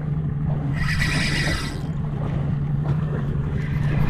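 Boat engine running at a steady idle, a constant low hum, with a short hiss about a second in.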